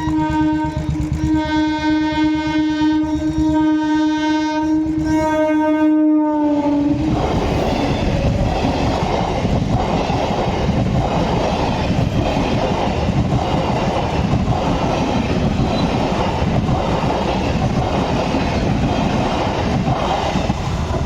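Medha EMU local train's horn sounding one long blast for about six seconds, dipping slightly in pitch as it ends. Then the train's wheels and cars clatter past at speed in a loud, rhythmic rattle.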